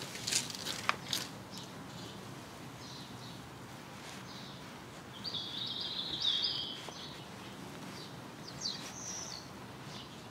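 Steady outdoor background noise with a small bird chirping: a few short high chirps at the start, a longer twittering phrase in the middle, and more chirps near the end.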